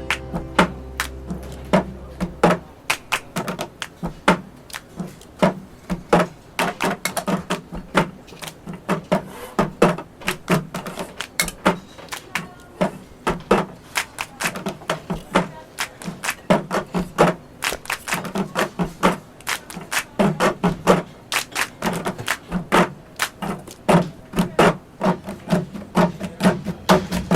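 Cup-song percussion: cups clapped, tapped and knocked on tables in a repeating pattern of sharp clicks, over quiet backing music.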